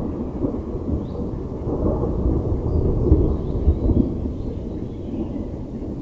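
Homemade wooden bullroarer whirling on its cord: a low, rough, pulsing roar that swells over the first few seconds and then holds.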